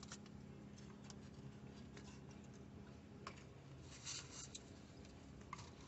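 Near silence inside a car, with a faint low hum and scattered faint rustles and light clicks of food packaging being handled.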